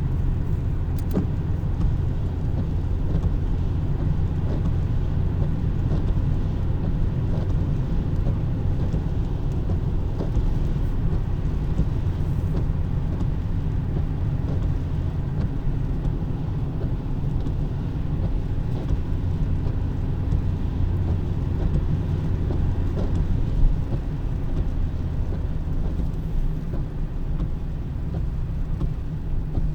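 Steady low rumble of car road noise, unbroken, with a few faint clicks.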